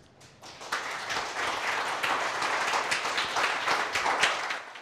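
Audience applauding: dense clapping that builds up within the first second, holds steady, and dies away near the end.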